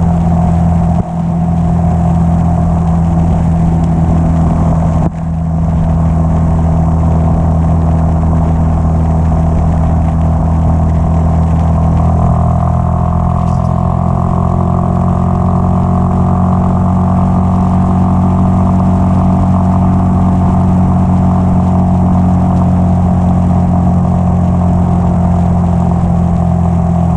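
Yamaha XT660X single-cylinder motorcycle engine running at a steady pace on the move, with two brief dips in level about one and five seconds in.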